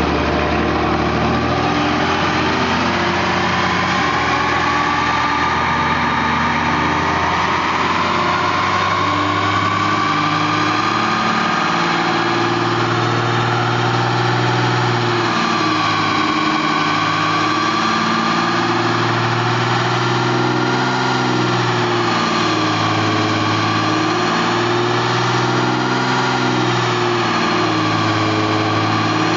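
2007 Dodge Ram's Cummins inline-six turbo-diesel idling steadily, its drone wavering slowly in pitch without revving.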